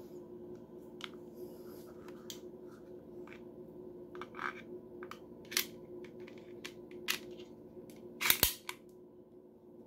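Sharp metal clicks and knocks from handling an HK P7 PSP pistol and its magazine. They come singly every second or so, with the loudest cluster of clicks about eight seconds in.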